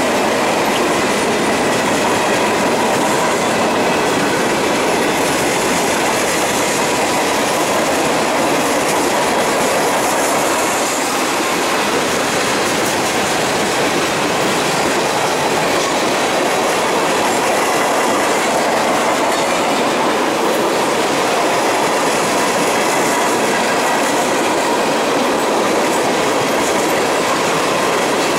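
Freight train cars, including a long string of tank cars, rolling past close by: a steady, loud rumble and clatter of steel wheels on the rails that never lets up, with a faint steady tone riding above it.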